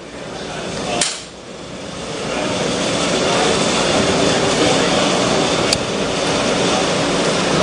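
A steady mechanical running noise that starts with a click about a second in and builds up over the next couple of seconds, with another sharp click near the end.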